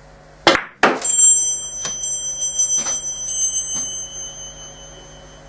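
Russian billiards shot: a sharp knock of the cue striking the cue ball, then a second knock as the cue ball hits the object ball. This is followed by a few seconds of scattered clicks under a high metallic ringing that fades out.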